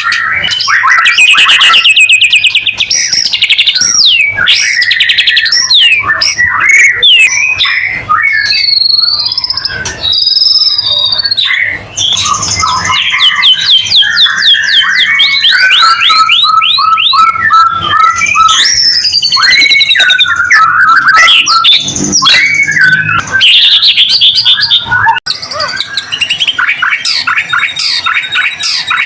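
White-rumped shama singing a loud, continuous, varied song of fast trills, rapid runs of repeated notes and clear whistled phrases.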